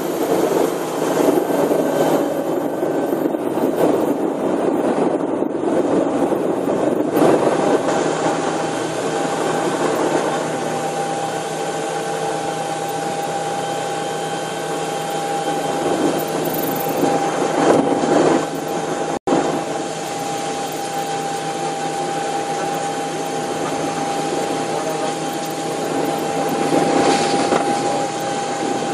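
Bell 430 twin-engine helicopter heard from inside the cockpit, its turbine and rotor noise running steadily as it climbs away. A thin, steady whine rises out of the noise about eight seconds in and holds, and the sound cuts out for a split second about two-thirds of the way through.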